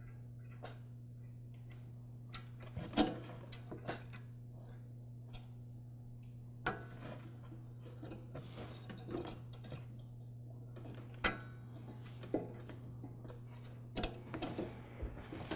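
Small metallic clicks and taps as wire linkage rods are hooked back onto a lawn mower carburetor's levers, coming irregularly, with the sharpest about three seconds in and again near eleven seconds, over a faint steady hum.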